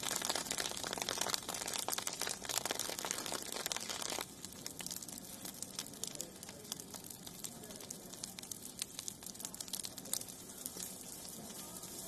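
Burning forest vegetation crackling and popping, dense and loud at first, then thinning to a softer, sparser crackle from about four seconds in.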